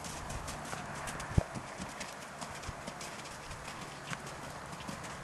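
Hoofbeats of a grey horse moving over wet sand arena footing: scattered soft clicks and thuds, with one sharper knock about a second and a half in.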